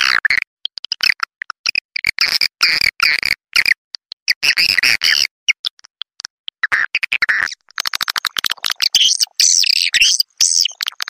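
Swiftlet calls: fast chirps and rapid clicking twitters in short broken bursts, thickening into a denser, higher chatter in the last few seconds.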